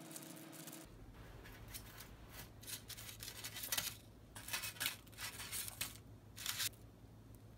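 Baking parchment crinkling and the crisp breadcrumb crust of baked cutlets crackling as a hand handles them on a baking tray, in several short rustling bursts.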